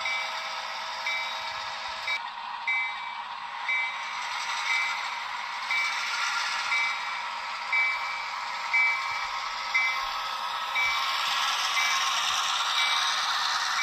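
Model diesel locomotive's onboard sound system ringing the locomotive bell, a short high ding about once a second, over a steady engine sound.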